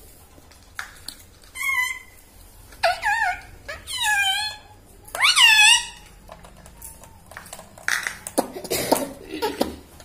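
Rose-ringed parakeets calling: a string of short, arched squawks that rise and drop in pitch, then a rougher, noisier run of calls near the end.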